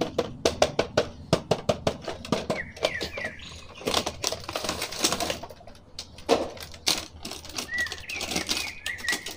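Clear plastic blister packaging and a cardboard toy box crackling and rustling as an action figure is unboxed, a quick run of sharp clicks at first, then looser rustles. Faint bird chirps in the background.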